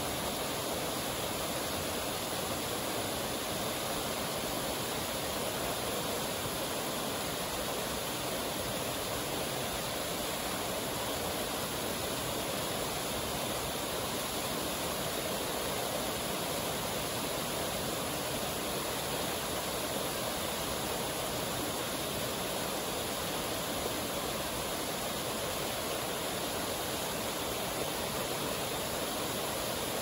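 Waterfall and its stream: water pouring and rushing steadily over rock ledges, an even rush with no change.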